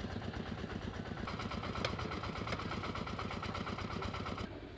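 Motorboat engine chugging steadily with a fast, even pulse; a higher hum joins about a second in, and the sound drops away shortly before the end.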